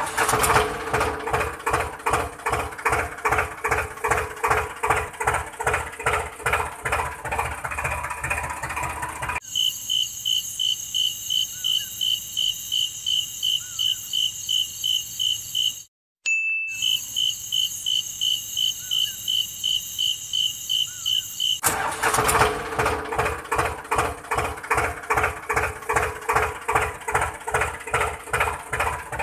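Tractor engine running with an even, slow chug of about two to three beats a second. For about twelve seconds in the middle it cuts abruptly to rapid, high-pitched pulsing insect chirping, with a brief dropout partway through, before the engine chug returns.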